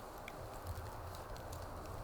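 Wood fire crackling: a scatter of small, sharp ticks over a low steady rumble.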